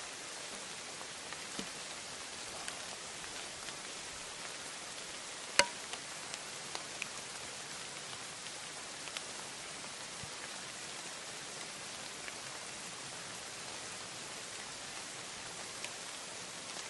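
Steady rain falling on the forest leaves, with scattered drops ticking close by and one sharper, louder tap about five and a half seconds in.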